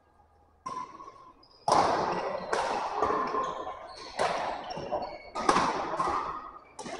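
Badminton racket strings striking a shuttlecock in a rally, a sharp hit about once a second, each ringing on in the echo of a large sports hall.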